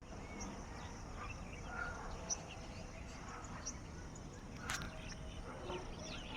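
Several birds chirping, many short calls and quick downward-sliding notes overlapping, over a steady low outdoor rumble. One sharp click a little past the middle.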